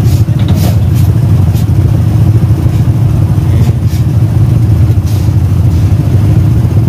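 Steady low rumble of a running motor vehicle, with a few faint brief hisses in the first second and a half and again about five seconds in.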